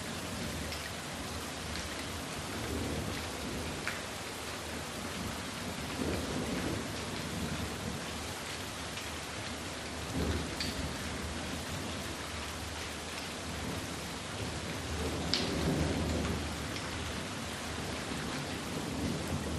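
Rain falling steadily on a calm lake surface, a continuous patter of drops on water. A few low rumbles swell up and fade, the strongest about two-thirds of the way in.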